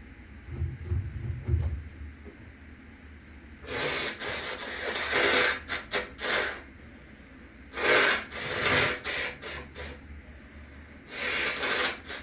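A person with a cold making forceful breathy blasts and sniffs through the nose, in three bouts that each break into several short bursts. Low thuds come about a second in, and a faint steady fan hum runs underneath.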